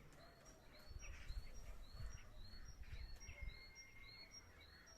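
A small songbird singing faintly, repeating a two-note phrase (a short high note, then a lower arched note) about twice a second. Faint low rumbling comes and goes in the middle.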